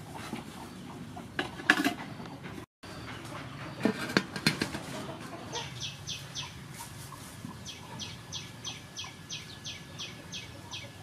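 Aluminium steamer pot clanking and knocking as a steamer tier is set onto it, loudest in the first half. Then a bird repeats short high calls, about three a second, through the second half.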